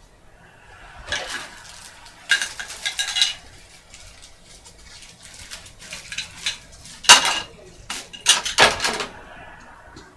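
Board game parts and their packaging being handled, clattering and clinking in four short bursts; the loudest comes just after seven seconds.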